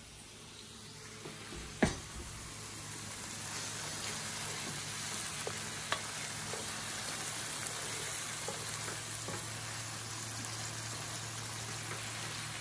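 Sliced onions and sweet peppers sizzling in a non-stick frying pan as a wooden spoon stirs them, with a few light taps of the spoon. The sizzle builds over the first few seconds, and there is one sharp knock about two seconds in.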